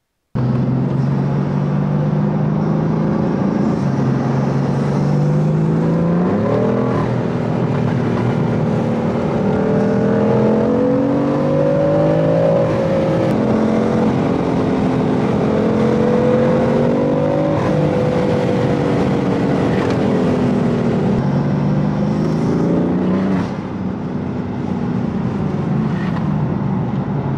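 BMW F80 M3's twin-turbo S55 straight-six, fitted with resonated downpipes, a single midpipe and stock mufflers, pulling the car along a road and heard from inside the cabin. The engine drone climbs in pitch about six seconds in and holds under load with gentle swells. It eases down, then climbs again briefly before dropping back a little past two-thirds of the way through.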